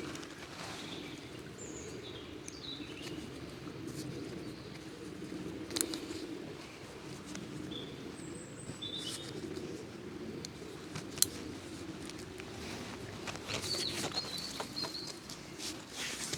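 Wild birds chirping in short, scattered calls over a steady low rushing background, with a few sharp clicks.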